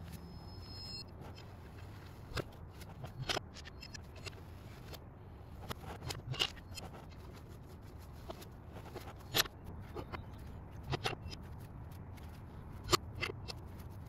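Four-way cross lug wrench spun to run lug nuts onto a steel wheel's studs: scattered metallic clicks and taps, the sharpest about nine and thirteen seconds in.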